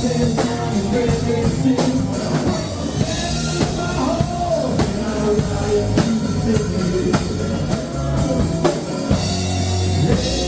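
Country-rock band music with a full drum kit, bass and guitars, and a sung melody over it.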